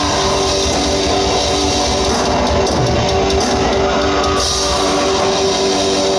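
Live rock band playing loud and steady: electric guitars holding notes over a drum kit.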